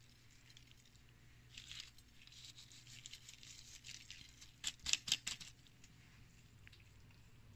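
Quiet food-preparation handling sounds: a soft rustle, then a quick run of four or five sharp scrapes or taps, as of a utensil against a dish, about two-thirds of the way through.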